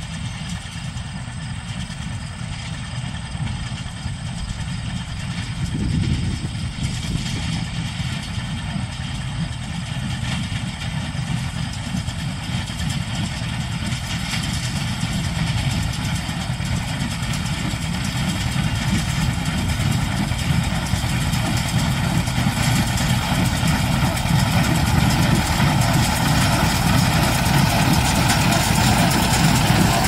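An engine running steadily. It gets a step louder about six seconds in and keeps growing louder toward the end.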